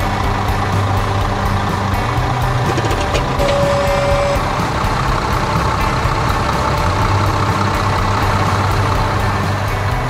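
Cartoon sound effect of a farm tractor's engine running steadily under background music, with a brief beep about three and a half seconds in.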